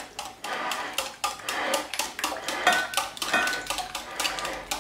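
Wire whisk beating a yogurt-and-egg sauce in a ceramic bowl: rapid, even clicking of the wires against the bowl's sides, about four or five strokes a second.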